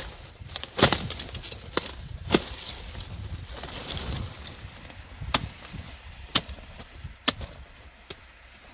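A knife cutting through a cauliflower's thick stem and leaf stalks: about eight sharp snaps at uneven intervals, with leaves rustling in between.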